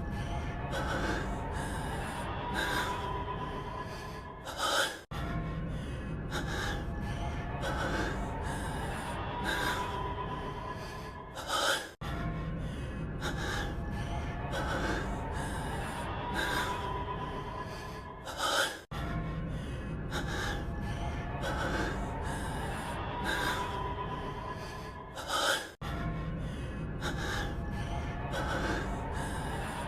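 A man's voice breathing heavily in short gasps, a clip of anime voice acting looped over and over about every seven seconds, each repeat ending on its loudest gasp just before a hard cut. A faint music bed runs under the breathing.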